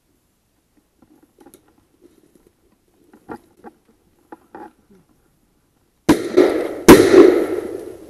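Soft rustling and twig snaps as a hunter creeps through thick brush, then about six seconds in a sudden loud burst as a ruffed grouse flushes, followed a second later by a single shotgun blast, the loudest sound, ringing out through the woods.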